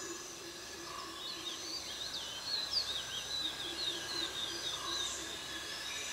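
Forest birdsong: a bird twitters in a quick run of high chirps for about four seconds, over a steady background of outdoor ambience.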